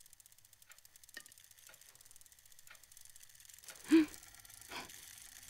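Fast, faint, even ticking of a clockwork mechanism, with scattered small clicks. About four seconds in comes a short, loud, pitched sound that drops in pitch, then a softer click-like sound.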